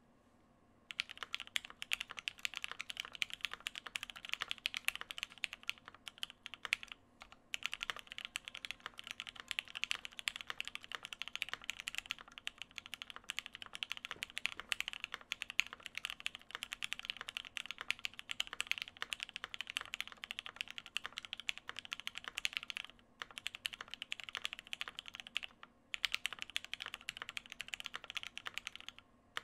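Continuous typing on a custom mechanical keyboard with lubed, filmed Gateron Black Ink linear switches on a polycarbonate plate and GMK doubleshot ABS keycaps. Rapid, steady keystrokes begin about a second in and break off for a few short pauses.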